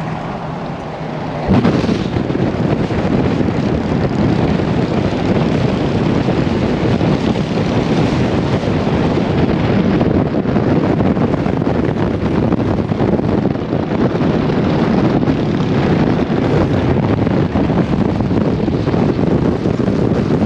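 Steady rushing wind buffeting the microphone held out the open window of a moving pickup truck, with road and traffic noise beneath. It jumps in abruptly about a second and a half in, then holds steady.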